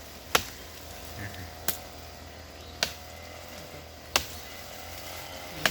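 Five sharp chops of a blade into wood, spaced about a second and a half apart: a woody vine being hacked through with a machete.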